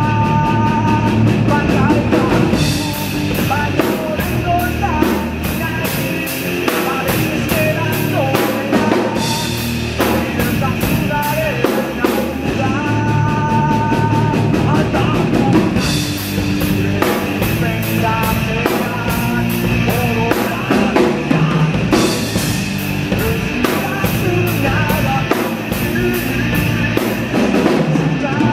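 Rock drum kit played at a steady beat, with busy cymbal strokes and kick drum, over a rock song's guitar and vocals.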